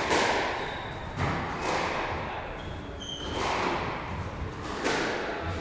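Squash balls being struck and hitting walls on nearby courts: dull thuds about once a second, irregularly spaced, each ringing on in the reverberant hall.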